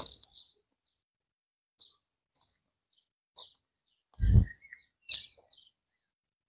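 Close-miked eating sounds: a crunchy bite into grilled catfish at the start, then scattered short mouth clicks and smacks while chewing, with a dull thump a little past four seconds in.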